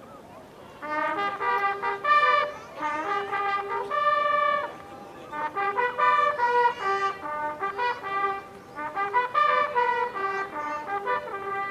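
Brass honors fanfare for a military salute: trumpets playing short phrases of clear held notes, starting about a second in and pausing briefly twice.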